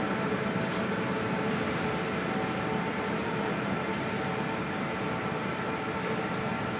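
Tobacco processing line machinery running: a steady mechanical din with several constant humming tones.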